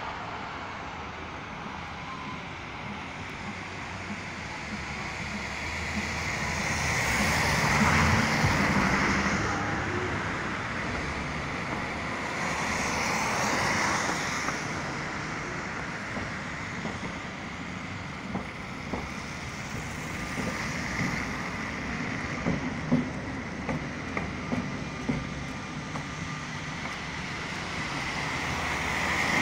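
Road traffic on a wet street: vehicles swish past, their sound rising and fading three times, with a few light knocks in the second half.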